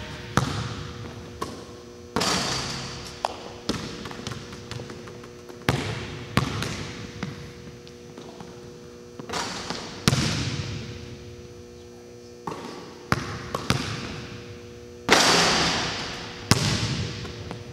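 Basketball bouncing on a hard court in an echoing gym: a sharp hit every second or two, each one ringing and fading away, over a steady electrical hum.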